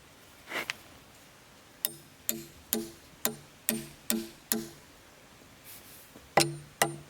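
A series of sharp knocks, about two a second, each with a short pitched ring. Seven come in a row, then two more near the end. A short swish comes just before them.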